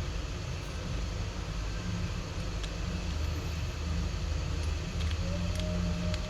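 Steady low rumble and hiss of background noise, with a few faint light clicks of small phone parts being handled and set in place.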